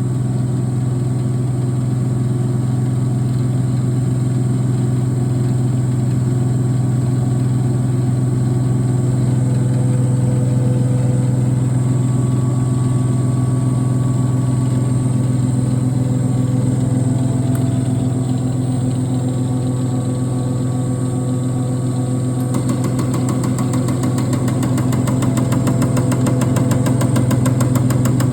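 A diesel injector test running: a steady machine hum throughout. About 22 seconds in, a rapid, even ticking joins it.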